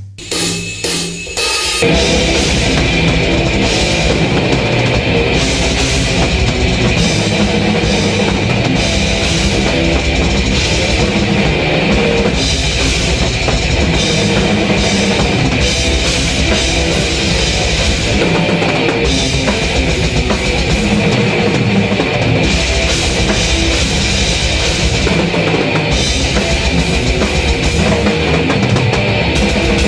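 Drum kit played with a heavy metal song. A few separate drum hits open it, then about two seconds in the full song kicks in and runs dense and unbroken, with rapid bass-drum strokes and cymbals throughout.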